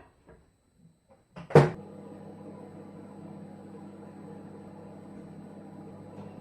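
A microwave oven door shuts with a loud clack about a second and a half in, then the microwave starts and runs with a steady hum.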